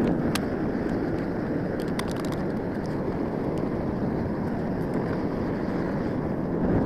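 Propane furnace burner running with a steady rushing noise while it heats a crucible of aluminum cans. A few light clicks sound near the start and again about two seconds in.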